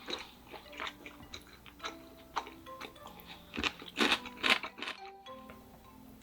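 Crisp crunching and chewing of deep-fried breaded pork cutlet (donkatsu), in irregular bites with the loudest crunches about four seconds in.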